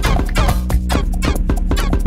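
Electronic dance music played in a DJ set, with a steady bass and a dense beat of repeated hits.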